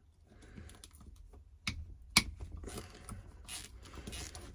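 Light clicks and taps of hand tools working on a starter motor, with two sharp clicks about two seconds in, as the 8mm through-bolts are backed out of the end cap.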